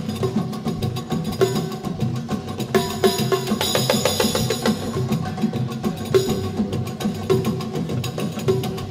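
Arabic orchestra percussion section playing a fast solo passage of dense, rapid hand-drum strokes, with steady pitched notes underneath.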